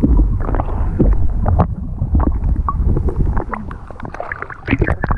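Wind rumbling on the microphone aboard a fishing boat, broken by many short knocks and rattles, thickest near the end.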